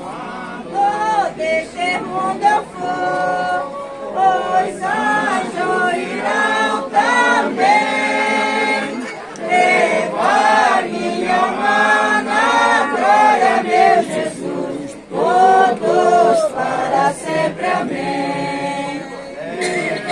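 Men and women singing together unaccompanied: a Portuguese reza cantada, a folk sung prayer to Saint Anthony, with slow, held notes in each phrase.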